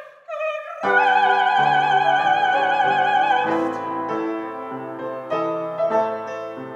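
Operatic soprano holding a long final note with vibrato over grand piano chords. The voice stops about three and a half seconds in, and the piano plays on alone with the closing chords of the aria.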